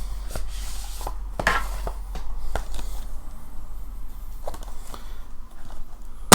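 Blu-ray packaging being opened by hand: rustling and sliding of cardboard and plastic with small scattered clicks, and one sharp, loud click at the very end.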